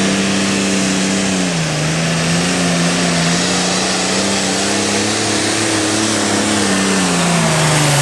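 Diesel engine of a modified International 1066 pulling tractor running wide open under load as it drags the sled, with a faint high whine above the engine note. The pitch dips briefly about a second and a half in, then falls near the end as the engine loads down.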